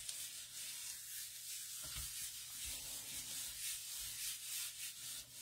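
Paper being peeled off an acrylic-painted gel printing plate: a faint, tacky crackle over a steady hiss.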